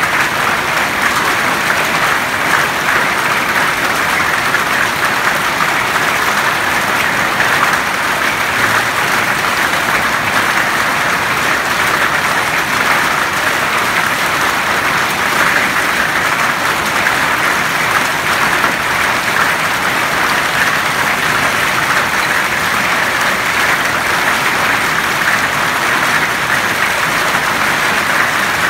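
Hail and heavy rain falling on a paved courtyard, grass and plants: a loud, dense, steady hiss of countless small impacts, without let-up.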